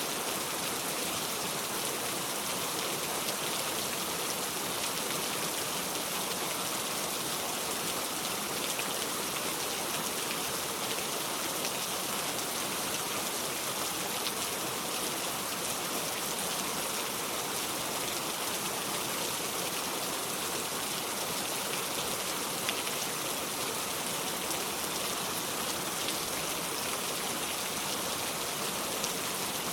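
Steady rain falling: an even hiss with a few slightly louder drops.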